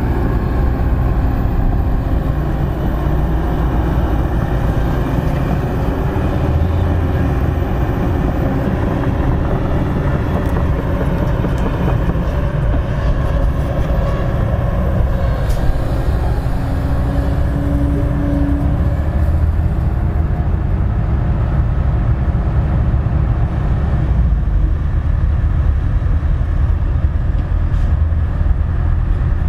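Kobelco crawler excavator's diesel engine running steadily as it digs and lifts soil, a continuous low rumble, with a dump truck's diesel engine running close by.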